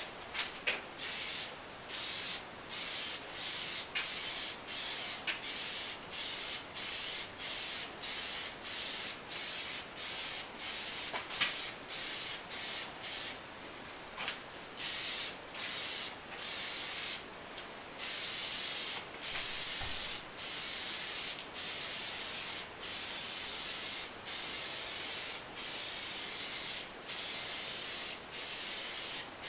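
Aerosol can of Plasti Dip spraying in repeated hissing bursts, short and quick at first, then longer passes in the second half, with brief pauses between them.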